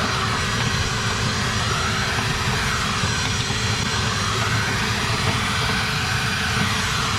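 Clothes dryer's blower running, pushing a steady rush of air and lint up through the dryer duct and out of its opening, with a hiss that swells and fades every couple of seconds.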